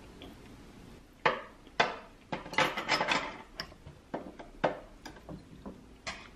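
Metal fork knocking and scraping on a ceramic plate while picking up a forkful of food: a run of sharp clinks, two single ones, then a quick cluster, then a few more spaced out.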